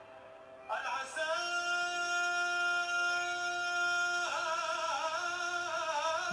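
Male voice singing an Arabic mawwal. It enters about a second in, holds one long steady note, then breaks into a wavering, ornamented melody.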